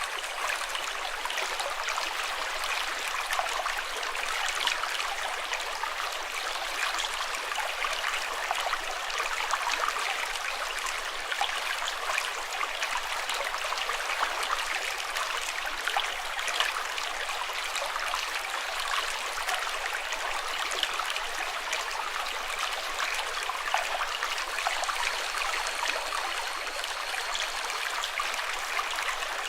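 Running water, a steady babbling splash like a small stream over stones: bright and even, with no deep rumble.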